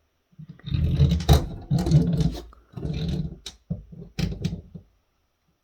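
Handling noise: rubbing, scraping and a few clicks as the phone's circuit board is moved and turned about on the work surface, in several bursts over about five seconds.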